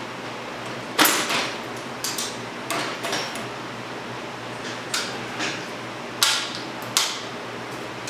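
About eight irregular metallic knocks and clanks, some ringing briefly, as a motorcycle rear wheel, its spacers and axle are worked into place in the swingarm.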